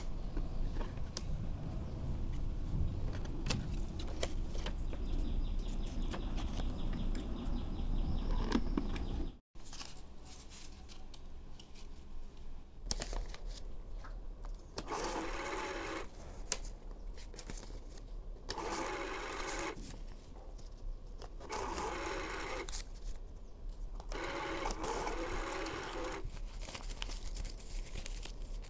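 Toy ATM piggy bank's small electric motor running in short bursts, four times, each lasting a second or two, as it pulls banknotes in through the slot.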